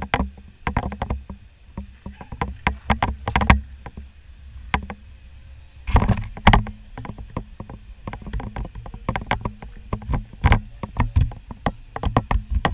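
Passenger train rolling slowly along the track: a steady low rumble with frequent irregular clanks and knocks, and a rougher rushing patch about halfway through.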